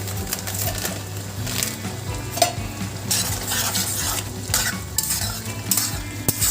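Spatula stirring and scraping through a pan of chana masala while it sizzles, in a string of uneven strokes over a steady low hum.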